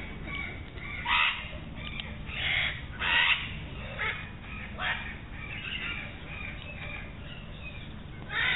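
Birds giving harsh, crow-like calls, about five spread through the stretch, over a low steady hum.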